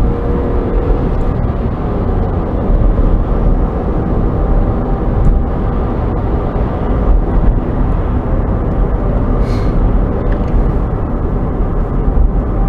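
Steady road and engine rumble heard from inside a moving car's cabin while the car speeds up.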